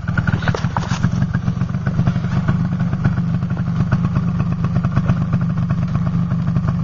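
Small four-wheeler's engine idling steadily, with a fast, even pulse of exhaust beats.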